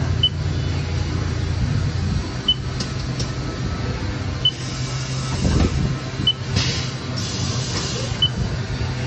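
Steady low hum of a powered-up Haas TL2 CNC lathe. Over it come short, high beeps from the control pendant roughly every two seconds as its keys are pressed to page through the alarm history. A brief rushing noise comes a little past halfway.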